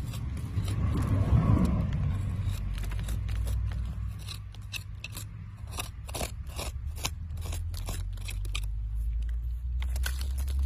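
A small hand tool scraping through gritty, sandy soil: a run of short, quick scrapes and clicks, with a louder rustle about a second in, over a steady low rumble.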